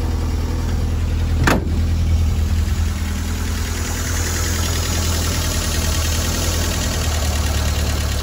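1952 Fordson E83W's side-valve four-cylinder engine idling steadily, its tappet freshly adjusted so that it ticks only lightly. A single sharp click about one and a half seconds in.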